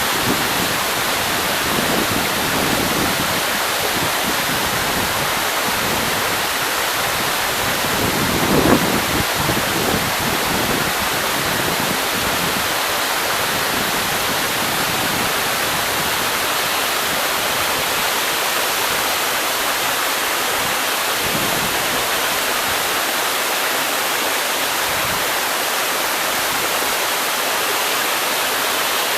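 Waterfall rushing with a steady, dense roar of falling water, with one brief louder surge about eight seconds in.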